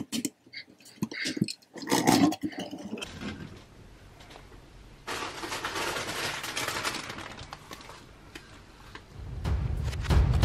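LEGO bricks being handled on a tabletop: a few sharp plastic clicks at first, then a stretch of rustling and scraping that grows louder near the end as bricks from the opened bags are spread out.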